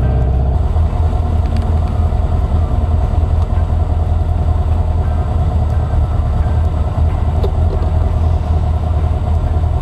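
A 1964 VW Beetle's air-cooled flat-four engine running warm as the car is driven slowly, heard from inside the cabin as a steady low rumble.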